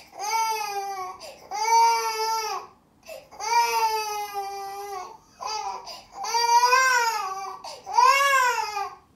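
Six-month-old baby wailing hard: about five long cries, each arching up and down in pitch, with short gasps for breath between them. This is the crying of a baby fighting being put to sleep.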